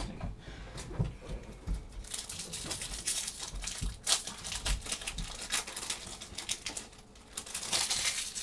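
Magic: The Gathering booster pack wrapper crinkling and tearing as it is opened, a dense, irregular crackle that grows busier about two seconds in, with a few soft knocks of handling early on.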